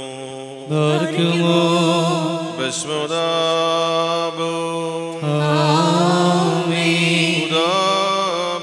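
A man's voice singing a slow Syriac liturgical chant, long held notes with wavering ornaments, in two phrases with a short break about five seconds in.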